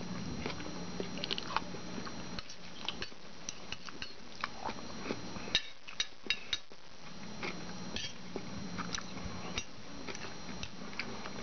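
Chewing, with a metal fork clicking and scraping on a ceramic plate in many short sharp ticks.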